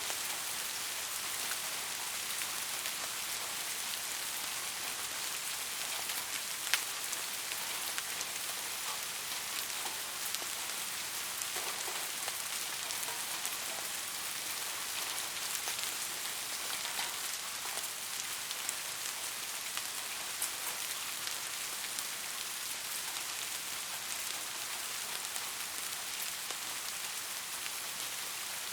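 Steady rain falling, an even hiss with scattered individual drop taps; one sharper tap about seven seconds in.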